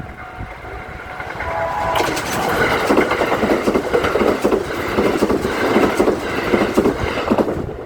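Kintetsu Urban Liner Plus limited express, a 21000-series electric train, passing the level crossing. A loud running rush of wheels on rail with rapid clicks as the wheels cross rail joints starts about two seconds in and drops away abruptly near the end.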